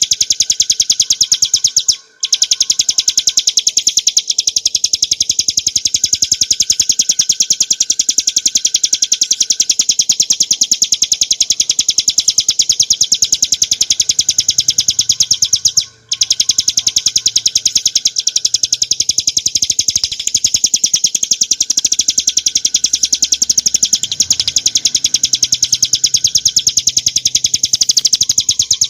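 Ciblek gunung (a prinia) singing a long, rapid, high-pitched trill of many notes a second, with brief pauses about two seconds in and again about sixteen seconds in.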